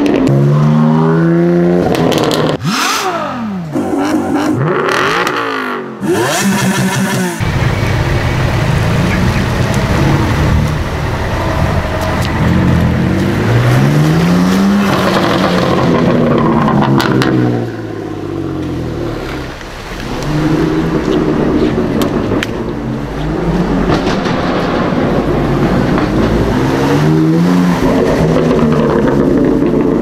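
Two BMW M4s' twin-turbo straight-six engines revving and accelerating away, one after the other, the engine note climbing again and again with each pull. In the first several seconds, sharp crackles and pops come from the exhausts.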